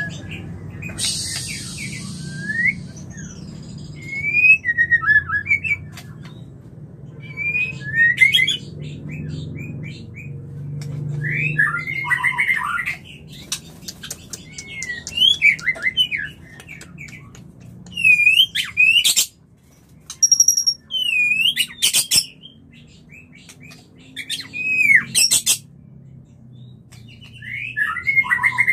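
Male white-rumped shama in breeding condition singing its mating song. It gives loud, clear whistled phrases with sharp notes and quick trills in bursts every couple of seconds, with short pauses between. A brief hiss comes about a second in.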